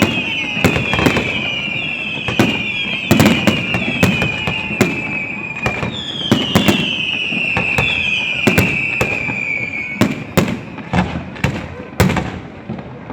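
Fireworks going off in quick succession, sharp bangs and crackles with repeated whistles that each fall slightly in pitch. From about ten seconds in the whistles stop and the bangs come as fewer, separate booms.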